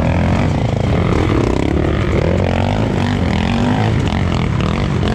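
Two-stroke KTM 250 EXC dirt bike engine running under gentle, varying throttle, the revs rising and falling. It is held back because the rain-soaked trail is too slippery to open the throttle.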